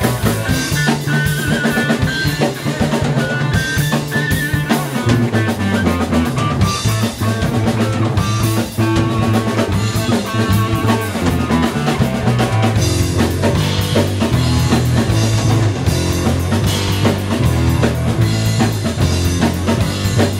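Live rock band playing: electric bass guitar, drum kit and electric guitar together, with a steady drum beat under a moving bass line.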